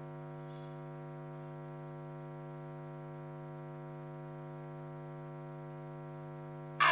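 Steady electrical mains hum, a low buzzing drone with many even overtones, holding at a constant level with nothing else over it.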